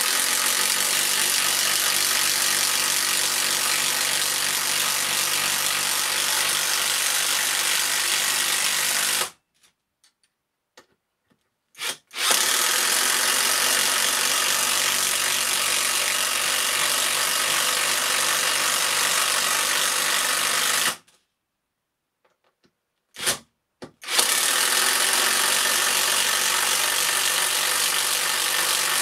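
Cordless 18V impact wrench hammering continuously as it drives long batten screws into a treated timber post: three runs of about nine seconds each, separated by short pauses, with the third still going at the end.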